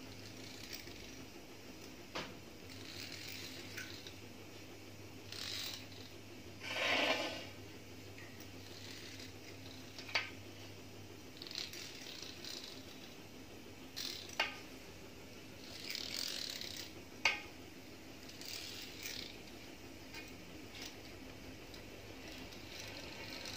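Metal fluted pastry wheel rolled in repeated short strokes across soft bread dough, its wheel rattling on its axle, with a few sharp clicks as it is lifted and set down; the longest, loudest stroke comes about seven seconds in.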